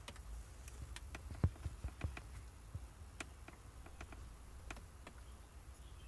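Socket ratchet clicking in short, irregular runs while a console bolt is worked loose, with a few light knocks of the tool against the fittings.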